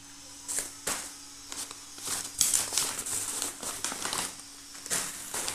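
Plastic snack packets crinkling and rustling as they are handled and shifted in a cardboard box, in irregular bursts starting about half a second in.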